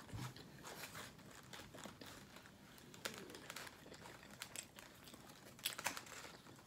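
Quiet crinkling and crackling of a gyro's wrapper as it is handled, with scattered small clicks and a few sharper crackles near the end.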